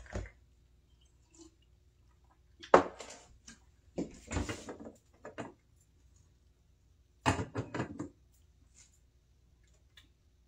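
Short runs of knocks and clatter from kitchen things being handled and moved, a sharp knock about three seconds in, a cluster around four to five seconds and a quick string of clicks near eight seconds, with quiet room tone between.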